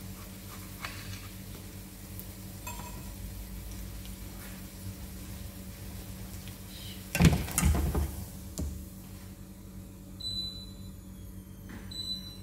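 Kitchenware clattering: a loud cluster of knocks and rattles about seven seconds in, over a steady low hum. A few light knife taps on a plate near the start, as a tomato is sliced.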